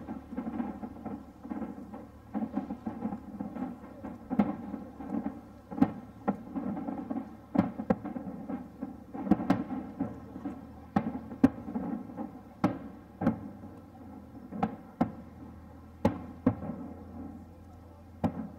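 Distant aerial fireworks shells bursting: a string of sharp booms at irregular intervals, often one or two a second, each trailing off in an echo, over a continuous low rumble of bursts.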